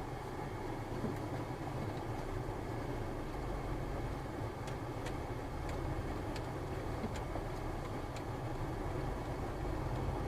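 Steady car engine and road noise with a low rumble, and a few faint scattered clicks.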